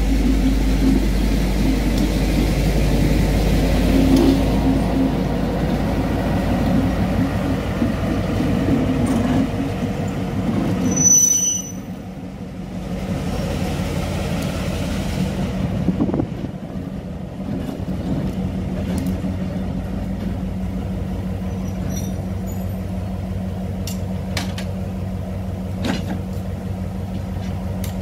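Diesel engine of A class locomotive A39 running steadily, heard first from on board the moving locomotive and then idling from beside the track, with a short high squeal about eleven seconds in.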